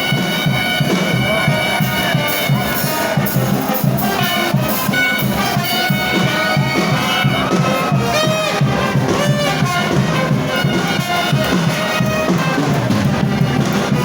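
Brass band music in frevo style: trumpets and trombones playing over a steady beat.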